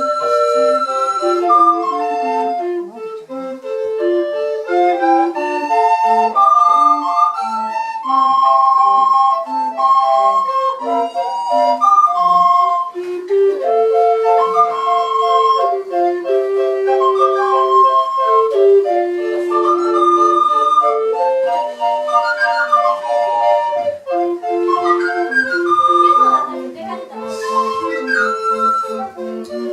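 A recorder ensemble playing a piece in several parts at once: lower and higher recorders moving together through short and held notes.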